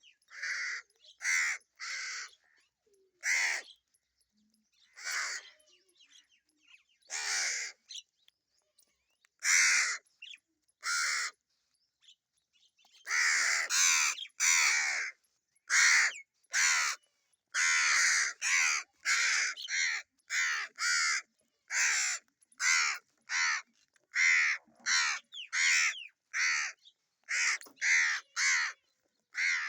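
Crows cawing over and over in short, harsh calls, spaced out at first and coming thick and fast from about halfway through, with several calls overlapping.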